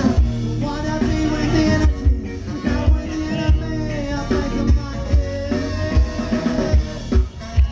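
Live band playing on an outdoor stage, heard from the audience: a singer over guitars and a steady kick-drum beat.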